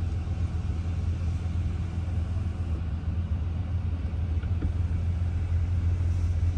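Retrofitted power rear window blind in a BMW F10 running up across the rear glass, with a steady low hum throughout.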